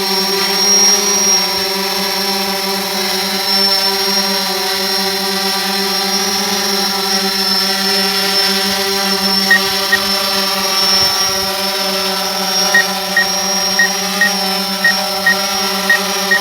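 DJI Phantom 4 quadcopter's motors and propellers humming steadily in flight. Short high beeps start near the end, about two a second.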